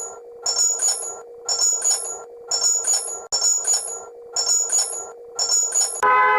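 Emergency alert alarm tone: a high, ringing electronic pulse repeating about once a second over a steady low hum. Near the end it cuts to a different, steady alarm tone.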